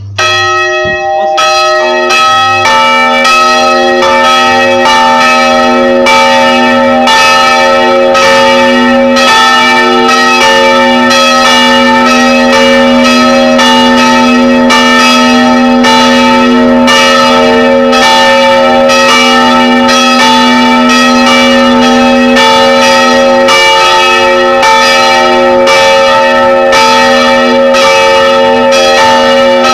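Three church bells (250 kg, 110 kg and 55 kg), swung by an electromagnetic drive, ringing together at close range inside the belfry. The strikes overlap in a loud, continuous peal that starts abruptly.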